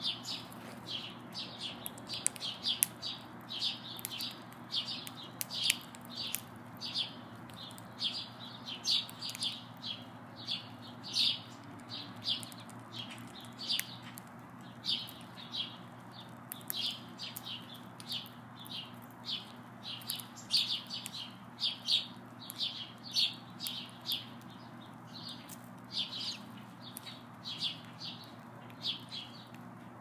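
House sparrows chirping steadily, a continuous string of short high chirps at about one or two a second, over a low steady hum.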